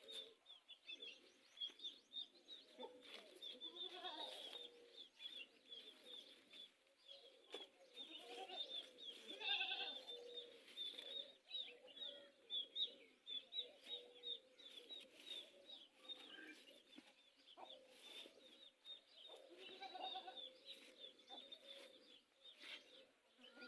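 Farm animals calling now and then, over small birds chirping many times.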